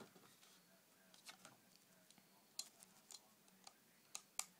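Faint, scattered clicks and ticks, about a dozen at uneven intervals, from the airsoft rifle's magazine being handled and worked by hand.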